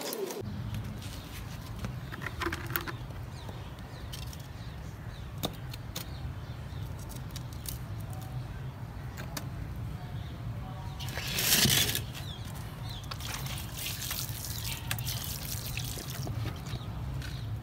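Wet cement being mixed and worked by hand for the pot repair: small scattered clicks and scrapes, with a brief louder rush about eleven seconds in, over a steady low hum.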